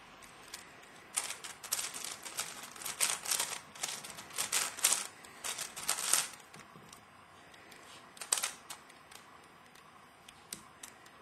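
Plastic layers of a Crazy 3x3 Earth puzzle cube clicking and clacking as it is turned quickly by hand. The turns come in rapid runs for about five seconds, then pause, with a short burst again later.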